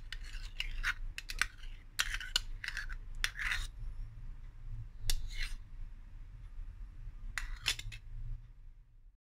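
Metal spoon scraping out a plastic yogurt cup and knocking against it as yogurt is scooped into a glass jug: quick runs of short scrapes and clicks, a few more after a pause, then a sudden cut to silence near the end.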